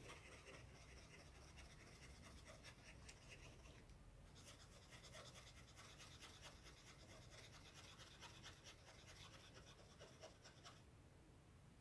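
Faint scratching of a small paintbrush's bristles dabbing fabric paint onto cloth stretched taut in an embroidery hoop, many short strokes that stop near the end.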